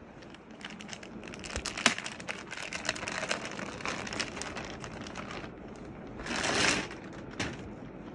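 Clear plastic packaging crinkling and crackling as it is handled and pulled off a pack of suit fabric. A dense run of crackles is followed about two-thirds through by a louder swish of plastic and then a single sharp click.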